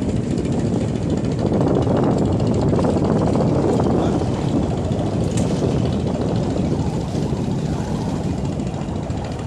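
Steady low rumble of a ferry's engines, mixed with rushing noise, slightly louder in the first half.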